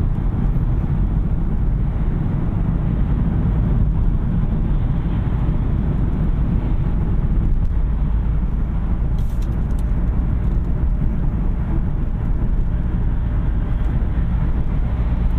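Steady road and tyre noise of a 2021 Kia K5 Hybrid cruising on an expressway, heard from inside the cabin.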